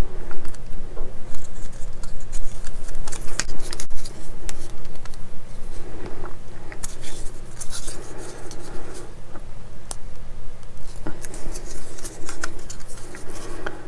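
Small plastic model-kit parts being handled and fitted together on a workbench: an irregular run of light clicks, taps and scratchy rustles.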